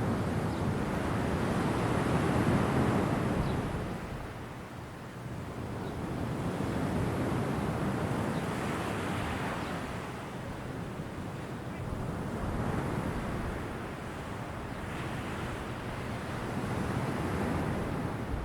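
Ocean waves breaking and washing on a shore, a steady rushing hiss that swells and falls back in slow surges every four to five seconds.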